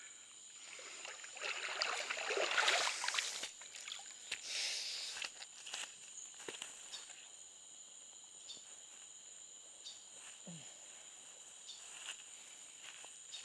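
Outdoor ambience with a steady high-pitched insect drone throughout. Rustling in the first few seconds, scattered light clicks, and one short low falling call about ten seconds in.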